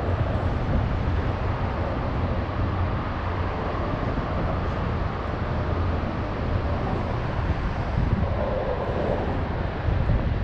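Steady low rumble and wind noise on the microphone, even throughout with no distinct events.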